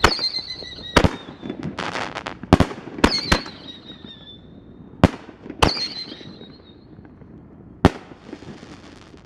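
Five-inch reloadable canister firework shells going off: about eight sharp bangs spread over the stretch. High whistles follow several of the bangs and fall slightly in pitch as they fade, and a burst of crackling comes about two seconds in.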